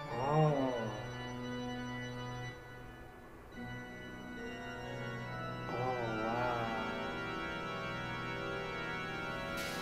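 Organ music from a stage performance's intro: sustained chords, with a wavering high note over them twice, near the start and about six seconds in. A hissing, cymbal-like noise comes in just before the end.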